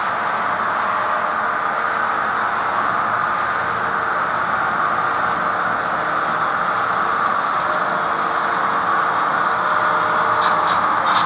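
HO-scale model diesel locomotives running along the track: a steady motor and wheel hum that grows slightly louder as the train approaches, with a few faint clicks near the end.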